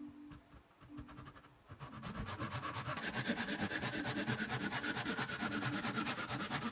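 A workshop tool rasps against material in fast, even strokes. It starts about two seconds in and runs steadily for about five seconds.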